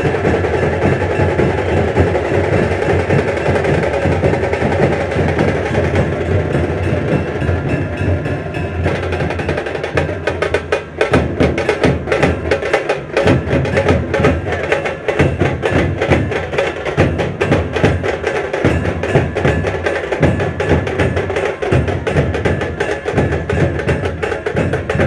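Street band set playing loud processional music, with drums and percussion driving a steady beat. Held notes sound over the drumming at first, and from about ten seconds in the playing turns into a sharper, fast drum-led section.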